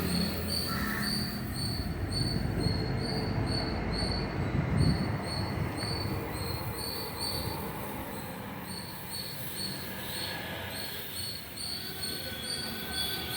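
High-pressure water jet hissing as it washes a Cat backhoe loader, with an engine running low underneath near the start and a rhythmic high-pitched chirping, about two pulses a second, throughout.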